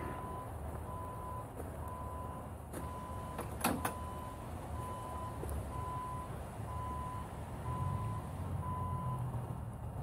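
Reversing alarm beeping a single steady tone a little more than once a second, stopping near the end, over a low rumble. One sharp click about four seconds in.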